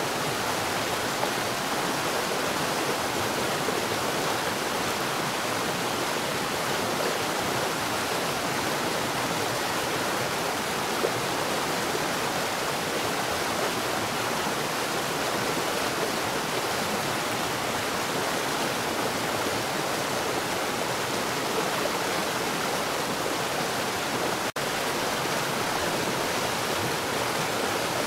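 Water falling underground at a rapid rate: a steady, unbroken rush of pouring water. It cuts out for a split second near the end.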